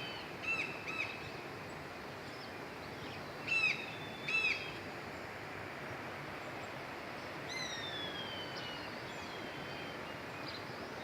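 Birds calling: a few short, arched chirps in the first half, then long whistled notes that fall in pitch, over a steady background hiss.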